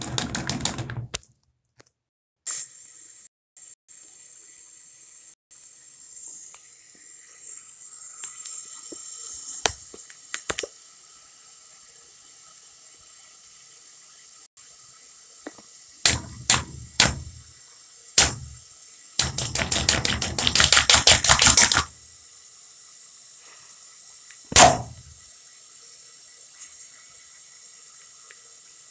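Water running from a faucet into a rubber water balloon stretched over the spout, a steady hiss, with a hand smacking the swelling balloon: a flurry of smacks at the start, a few single smacks later, then a fast run of slaps and one last smack.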